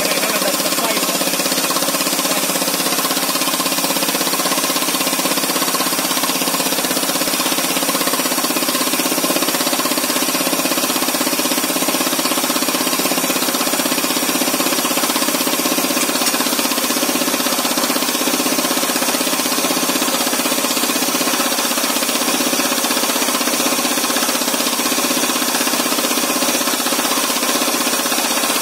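MK5 pneumatic rock drill boring a 110 mm hole, its compressed-air hammer running steadily with a hiss of exhausting air.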